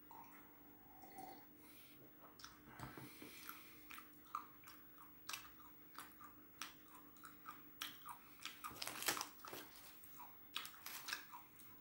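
A person chewing crunchy cheese-flavoured peanuts: a run of soft, irregular crunches that come thicker from about four seconds in.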